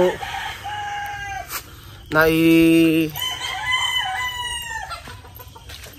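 Domestic chickens: a rooster crows loudly about two seconds in, one held call lasting about a second, with fainter crowing and calls from other birds before and after it.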